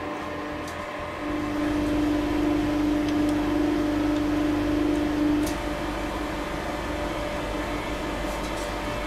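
Hydraulic press's pump motor running with a steady hum. The hum swells louder from about a second in and drops back about five and a half seconds in.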